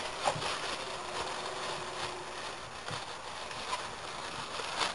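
Plastic bag wrapping rustling and crinkling while headphones are handled and lifted out of a cardboard box, with a few soft clicks and knocks.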